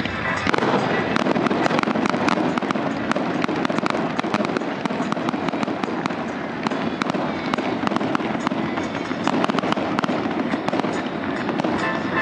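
Aerial fireworks display: shells bursting, with a dense run of rapid crackling pops.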